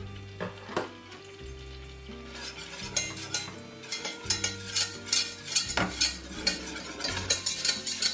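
Wire whisk stirring flour into melted butter in a stainless steel saucepan, scraping and clicking against the pan in quick strokes, several a second, from about two seconds in; a couple of knocks come in the first second. Low background music plays underneath.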